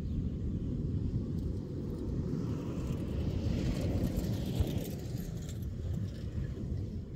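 Pickup truck driving past on a gravel road: its tyre and engine noise swells to a peak about four seconds in, then fades. Under it runs a steady low wind rumble on the microphone.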